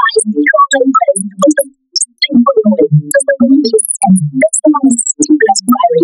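A character's spoken lines redone as a rapid string of short pitched water-drop blips that follow the rhythm and rise and fall of speech, with a brief break about two seconds in.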